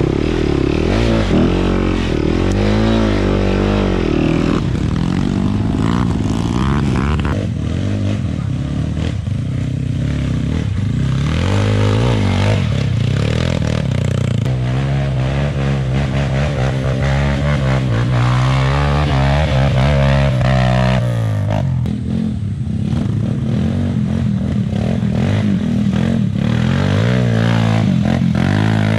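Dirt bike engine being ridden on a trail, its pitch rising and falling again and again as the throttle is opened and closed.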